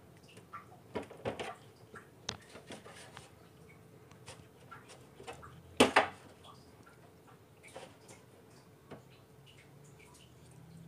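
Hands pulling the skin off a raw cuttlefish at a stainless steel sink: faint scattered clicks and small wet handling sounds, with one sharp knock about halfway through.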